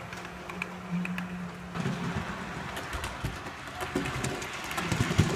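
Model trains running on layout track: a steady motor hum, then from about two seconds in a louder, rougher rolling clatter with many small clicks of wheels over the track.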